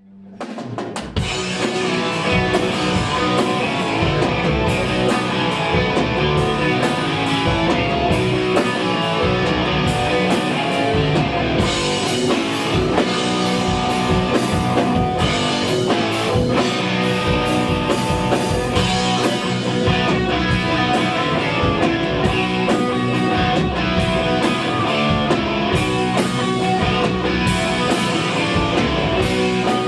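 Hard rock band playing live, with distorted electric guitars and a drum kit, loud and continuous after the sound fades in over the first second.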